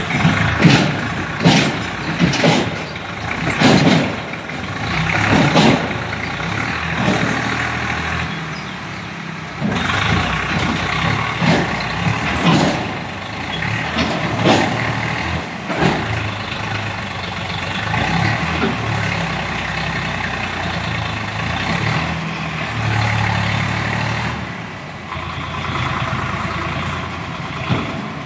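Tractor diesel engine running while the hydraulic tipping trailer's bed is lowered, with a steady low rumble and a run of short loud bursts in the first half.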